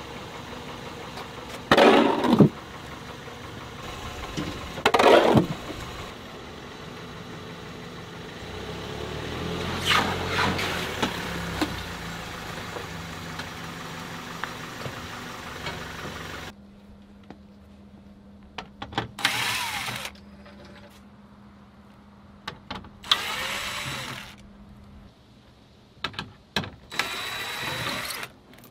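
Ford Transit Connect's engine running steadily with a few brief surges as the van is driven up onto wheel ramps, then switched off about halfway through. After that, several short whirring bursts of a DeWalt 20V cordless driver loosening fasteners under the van.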